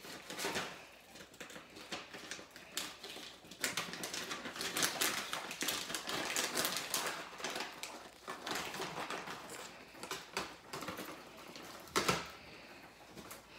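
Two guinea pigs moving about in a hay-strewn cage: busy, irregular clicking and rustling, with a couple of sharper clicks about a third of the way in and near the end.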